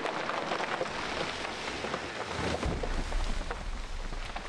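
Rain falling hard through trees, a dense patter of many small drops. A low rumble sets in about two and a half seconds in.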